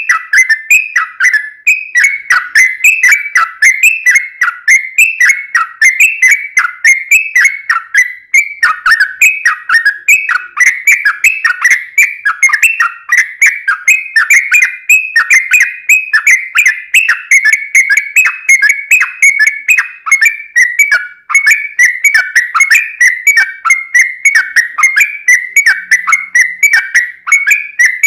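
Yellow-vented bulbul singing a long, unbroken run of quick whistled notes, each sweeping down in pitch, several a second.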